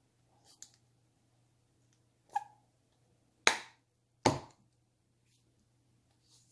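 A few short, sharp knocks: a faint one, then a louder one, then two loud ones less than a second apart.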